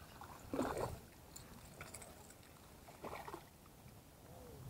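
A hooked bass splashing at the water's surface beside the bank as it is landed, in two short bursts: about half a second in and about three seconds in.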